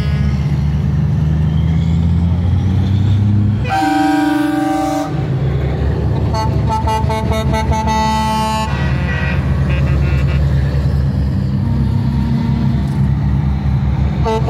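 Diesel semi-truck tractors running past one after another, with truck air horn blasts over the engine noise: a loud blast about four seconds in, a longer one from about six to nine seconds, and shorter toots after.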